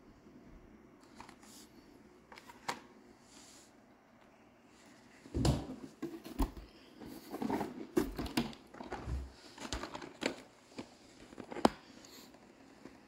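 Handling noise from Hot Wheels packaging: clicks, knocks and rustling of blister cards and cardboard being handled and set down. A few isolated clicks at first, then a busier run of knocks and rustles from about five seconds in, ending with one sharp click near the end.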